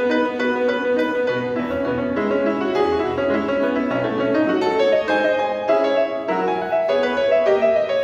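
Grand piano played solo, a quick succession of short notes over lower chords.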